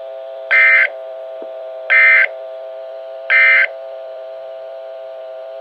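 Three short screeching digital data bursts of the EAS SAME end-of-message code, about a second and a half apart, over a steady electronic hum from the weather radio receiver. The bursts signal that the NOAA Weather Radio alert is over.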